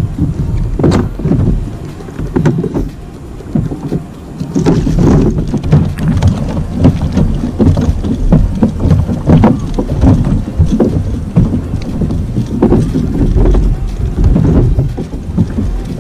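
Wind buffeting the microphone over water lapping against a plastic fishing kayak's hull, with scattered knocks and clunks from gear being handled aboard.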